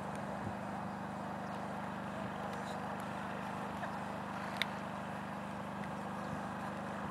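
Steady low machine hum, like a distant motor running, over an even outdoor hiss, with one sharp click about four and a half seconds in.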